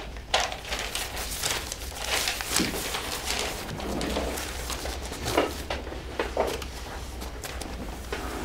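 Sheets of paper rustling and crinkling in many short irregular sounds as they are picked up and handled.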